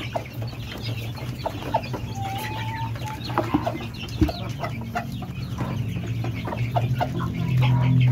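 Kampung chickens, hens and a rooster, clucking and calling in short scattered notes around a feeder, over a steady low hum, with a sharp knock about four seconds in.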